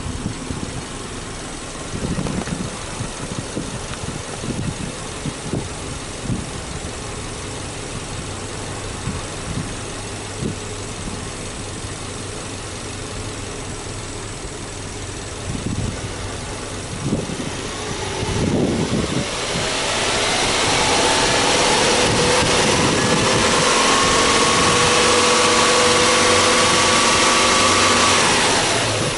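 Subaru Legacy B4 2.5i's EJ25 flat-four boxer engine idling steadily, then brought up over a couple of seconds to a higher, louder held speed for about eight seconds before dropping back near the end.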